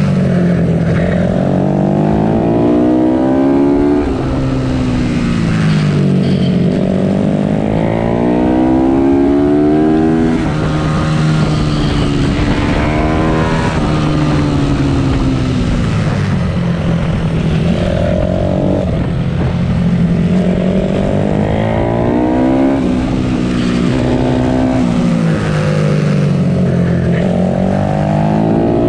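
Supermoto pitbike's small single-cylinder engine at racing speed, revving hard: the pitch climbs steeply through each gear and drops back on the shifts and when braking into corners, over and over.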